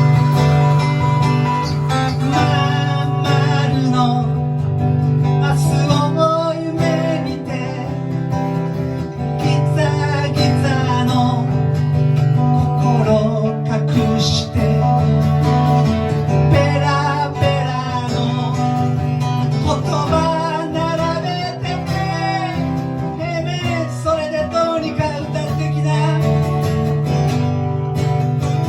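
Band music led by guitar, with a steady low sustained note under a wavering melody.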